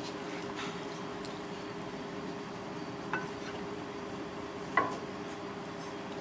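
Two short ringing clinks of kitchenware, about three seconds in and again, louder, near five seconds, over a steady background hum.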